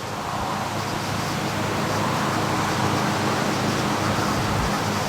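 Strong wind blowing over the microphone: a steady rushing noise that builds over the first couple of seconds and then holds.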